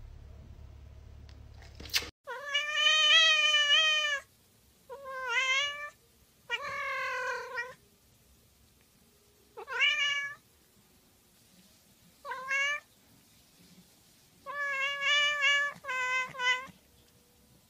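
Domestic cat meowing repeatedly, about seven meows with short pauses between them. The first meow is long and starts about two seconds in; the rest are shorter.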